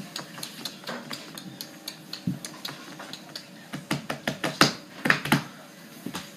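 Irregular clatter of light knocks and clicks, denser and louder about four to five seconds in.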